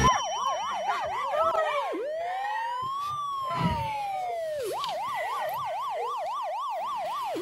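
Electronic siren cycling between a fast yelp, about four sweeps a second, and a slow wail: fast sweeps for about two seconds, one long rise and fall, then fast sweeps again, with a new rise starting near the end.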